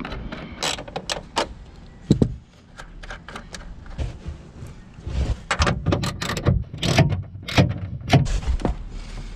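Irregular knocks, clicks and scrapes of hands and tools working inside a car trunk, pulling back the carpet liner and taking out the tail light's 10 mm bolts. The knocks come thicker and louder in the second half.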